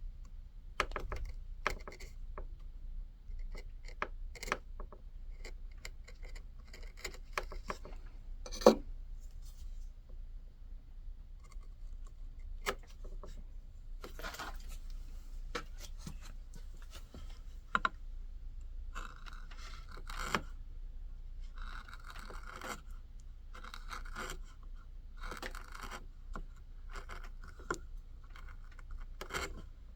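Hand carving tool cutting into hard white birch. The first half is a series of sharp clicks from short cuts. From about the middle it turns to a run of longer scraping strokes as shavings are pared off.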